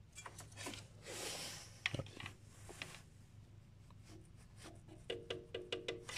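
Faint clicks and rubbing from hands working on parts and wiring in a car's engine bay, with one sharper click about two seconds in and a quick run of clicks near the end.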